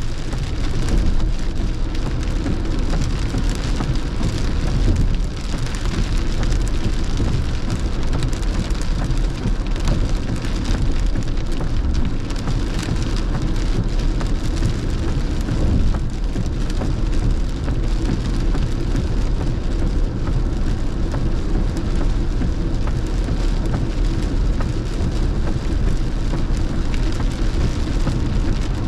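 Heavy rain falling on a moving car's windshield and body, heard from inside the cabin, over steady tyre noise on a wet road.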